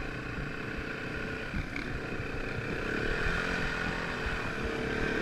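Dirt bike engines running at a steady pace.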